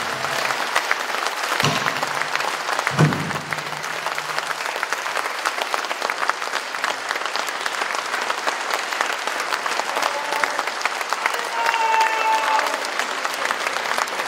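Audience applauding with a dense, steady clatter of clapping after a stage performance ends. Two deep thuds sound in the first few seconds, and a few cheers rise out of the clapping near the end.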